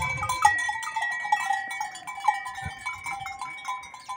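Several livestock bells on goats clanking and ringing at irregular moments as the animals move about.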